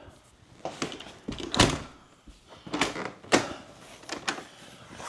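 Several sharp knocks and thuds of things being handled, the loudest about a second and a half in and another just after three seconds.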